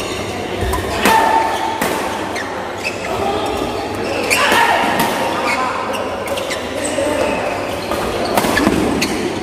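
Badminton rally: rackets striking the shuttlecock in sharp hits about a second apart, echoing in a large hall, with voices in the background.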